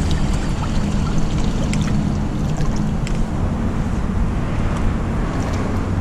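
Steady rushing of fast-flowing river water with a low rumble, and a few faint crinkles as a plastic bag is handled.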